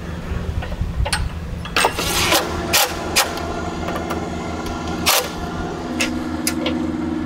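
A vehicle engine idling with a steady low hum, under a series of sharp clicks and knocks from hardware being fitted to rebuilt camper stairs.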